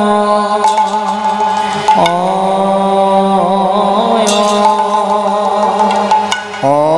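Bengali kirtan music: a long held melodic line with wavering ornaments and upward slides, over a steady drone, with a few cymbal strokes.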